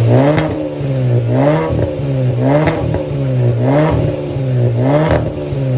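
Kia Cerato (K3) engine revved through a valved quad-tip aftermarket exhaust, blipped again and again: about five quick rises and falls in pitch, roughly one a second.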